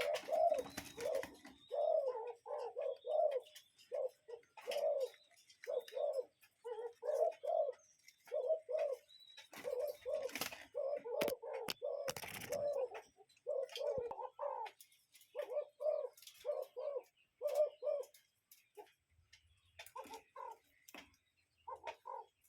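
Cuckoo calling its two-note "cuck-oo" over and over, about one pair a second, with short chirps from other birds mixed in. The calls grow fainter near the end.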